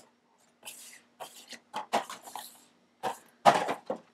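A child coughing and clearing her throat in several short, noisy bursts; the loudest comes about three and a half seconds in.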